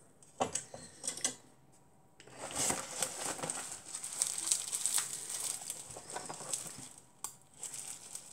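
A couple of light clicks in the first second, then, from about two seconds in, a long stretch of crinkling and rustling as packaging wrap is unwrapped by hand, with a brief pause near the end.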